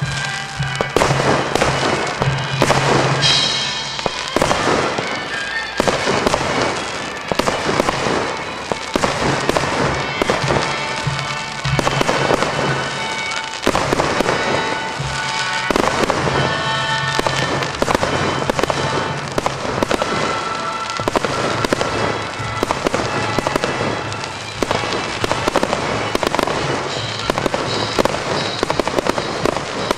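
Fireworks display: aerial shells bursting one after another in rapid, irregular bangs with crackle, over music playing throughout.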